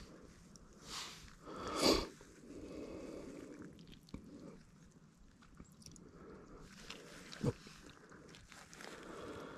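Stiff fabric of a black roll-top solar shower bag rustling and crinkling as it is folded and handled by hand. There is a louder crinkle about two seconds in and a short sharp knock later on.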